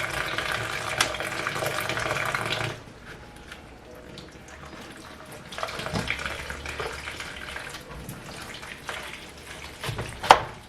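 Background music that stops a little under three seconds in, then water running from a tap into a sink with light clatter, and one sharp knock near the end.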